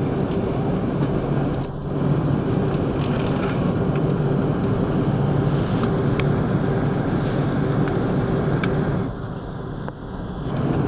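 Airbus A330-300 cabin noise heard from a window seat: the jet engines' steady hum at taxi power under a constant rush of air, with low steady tones. It drops briefly about two seconds in and again near the end.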